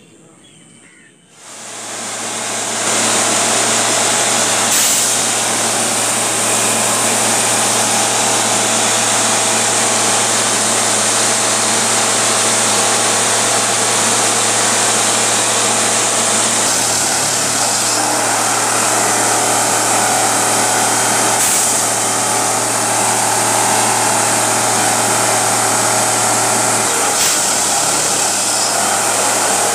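Ballast tamping machine running: a steady machinery drone with a loud hiss over it, starting about a second and a half in.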